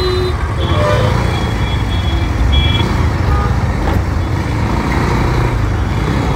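Motorcycle engine running at low speed in city traffic, a steady low rumble mixed with surrounding traffic noise. Short high-pitched beeps from nearby vehicles sound in the first three seconds.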